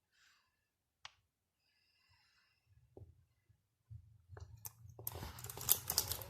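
Packaging being handled: near silence with a couple of faint clicks, then from about five seconds in a growing run of crackles and clicks.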